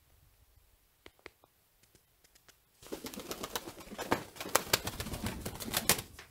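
Pigeon fluttering and flapping its wings at close range: a dense burst of rapid wing claps starting about three seconds in and lasting about three seconds, after a few faint clicks.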